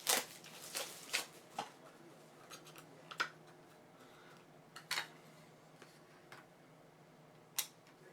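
Trading cards and hard plastic card holders being handled: a card being fitted into a magnetic one-touch holder, with scattered sharp plastic clicks and light rubbing. A faint steady hum runs underneath.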